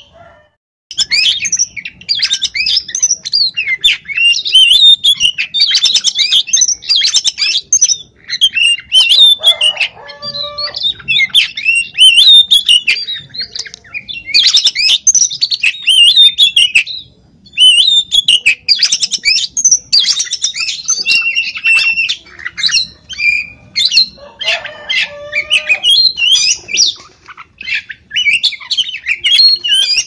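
Oriental magpie-robin singing loudly and without let-up, a rapid, varied run of high whistles and trills with a short break about seventeen seconds in. A few lower, harsher calls cut in around ten and twenty-five seconds in.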